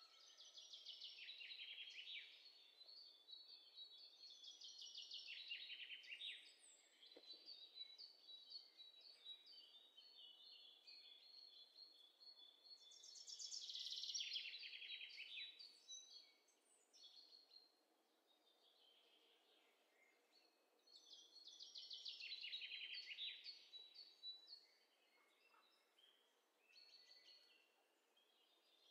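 A birdsong sound effect laid over the footage: songbirds chirping in quiet, rapid descending trills. They come in phrases of a few seconds, four times, with quieter chirps between them.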